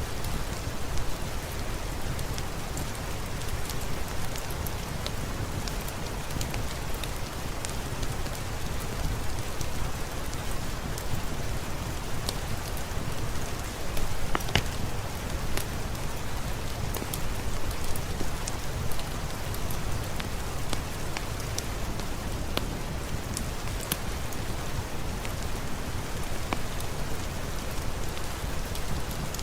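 Steady rain falling, with many small, sharp crackles of a wood fireplace scattered through it.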